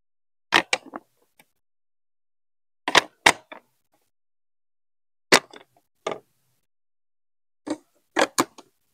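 Large Duplo-style plastic building blocks and marble-run track pieces being set down and pressed together: a series of sharp plastic clacks, in small clusters every second or two.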